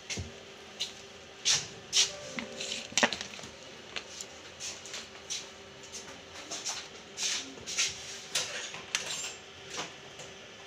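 Irregular small clicks, taps and scrapes of plastic and metal as a replacement internal battery is fitted into an opened laptop and worked on with a small screwdriver, with a faint steady hum underneath.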